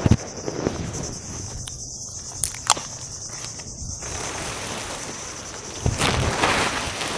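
Steady high-pitched chirring of crickets. A couple of sharp clicks come about two and a half seconds in. From about four seconds a broad rushing noise builds, loudest near the end.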